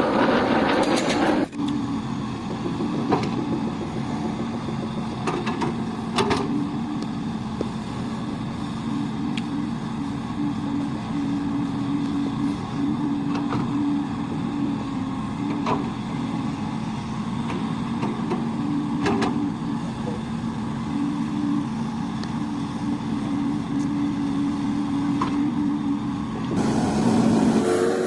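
Toy excavator's small electric motors whirring steadily with a two-note hum, with a few sharp clicks, and louder and noisier about the first and last second and a half.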